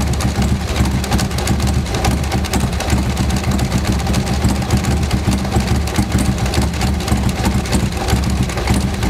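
Custom V-twin motorcycle engine running at a steady idle.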